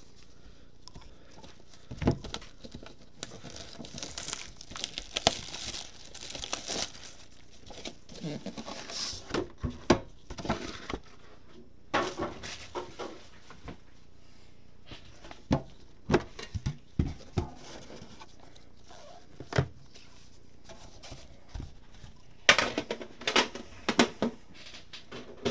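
Crinkling and tearing of packaging as sealed trading-card boxes are handled by gloved hands, broken up by several sharp knocks as boxes are put down on the table.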